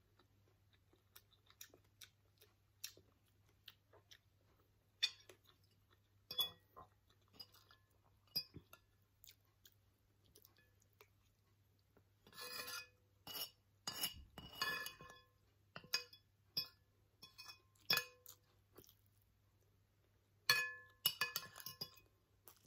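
Metal spoon and fork clinking and scraping against a ceramic plate while gathering up the last of the fried rice, with chewing in between. The clinks are scattered at first, then come in busier clusters about twelve seconds in and again near the end.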